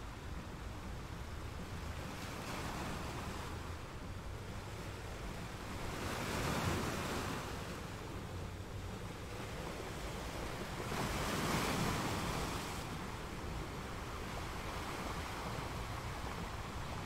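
Ocean surf: a steady wash of waves, with two louder surges washing in about six and eleven seconds in.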